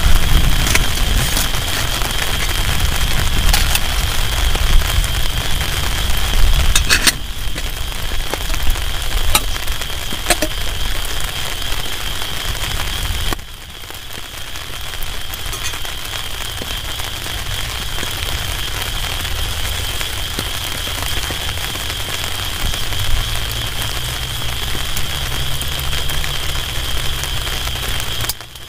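Heavy rain falling on a flysheet tarp and the forest around it, with scattered sharp drip clicks and a steady high-pitched tone. A low rumble sits under the rain for the first seven seconds or so, and the whole sound drops abruptly in level about halfway through.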